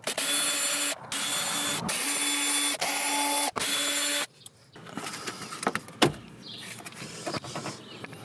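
A small electric motor runs in five short bursts of about a second each, with brief stops between them, followed by quieter handling and rustling.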